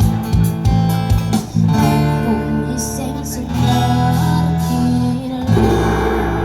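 Live acoustic guitar music: sharp strummed strokes for about the first second and a half, then held chords over a strong bass.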